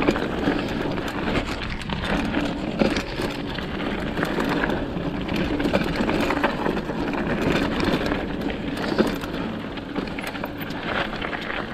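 Mountain bike riding down a rough dirt trail: steady tyre noise on dirt and loose stones, with frequent short knocks and rattles from the bike over the bumps.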